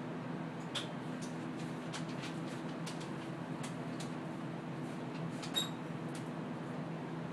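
CT scanner running during a head scan: a steady low machine hum, with scattered faint clicks and two short squeaks.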